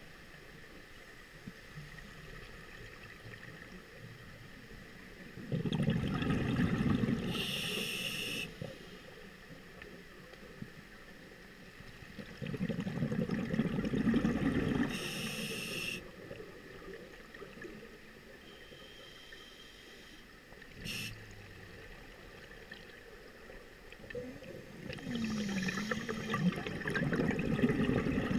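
Scuba diver breathing underwater through a regulator: three bursts of exhaled bubbles gurgling past, each ending in a hiss from the regulator, with quiet water noise between breaths.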